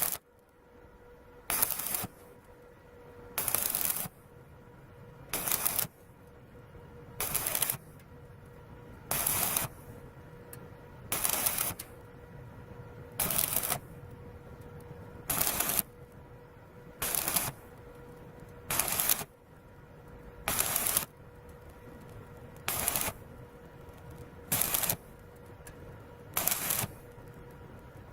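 Suzukid Aimax 120 wire-feed welder arc crackling in short bursts of under a second, about one every two seconds: stitch-welding a repair on a Subaru Sambar muffler. A faint steady hum runs between the bursts.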